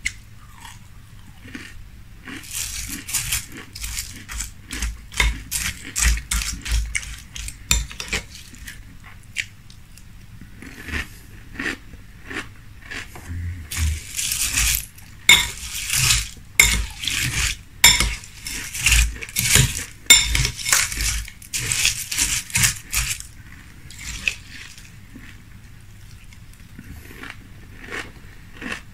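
Close-miked eating of frosted corn flakes in milk: a metal spoon clinks and scrapes against a glass bowl, mixed with crunchy chewing. It comes in two long stretches with a quieter spell between them.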